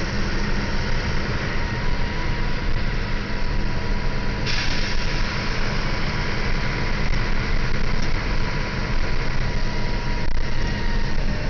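Engine of a Busscar Urbanuss Pluss LE city bus on a Scania L94UB chassis, running with a steady low drone under a constant hiss. A brighter hiss comes in about four and a half seconds in and stays.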